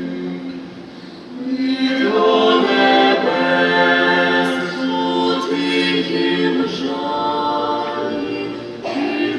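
A vocal ensemble singing in harmony, unaccompanied, on long held notes. The singing swells about a second and a half in, and a new phrase begins near the end.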